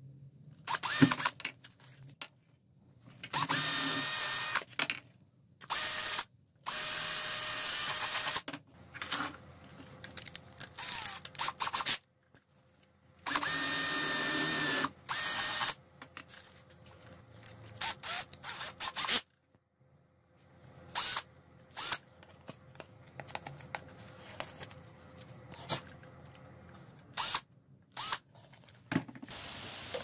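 Power drill with a small twist bit boring holes through a plastic enclosure lid. It runs in several separate bursts of one to two seconds, with short clicks and knocks of handling in between.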